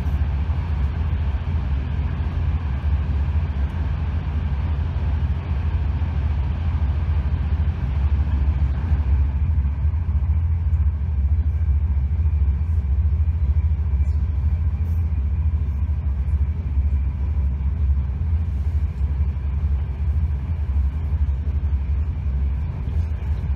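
Steady low rumble of a moving vehicle, with a higher hiss that drops away about nine seconds in.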